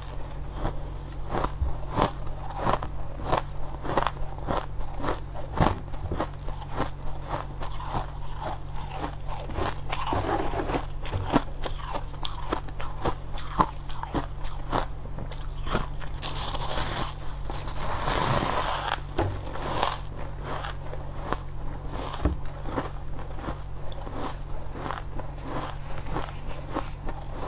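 Biting and chewing chunks of crushed white ice: a continuous run of crisp crunches.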